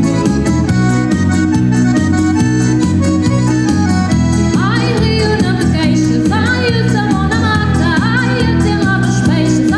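A live band playing popular dance music over a steady bass beat. About halfway through, a wavering lead melody comes in above it.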